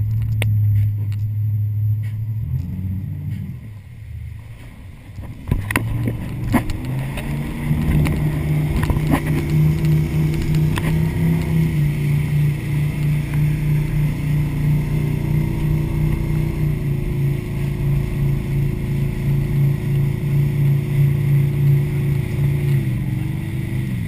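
Motorboat engine running at low revs, then throttled up between about five and eight seconds in and holding a steady drone under way, dipping briefly in pitch near the end. A few knocks come a few seconds after the throttle-up.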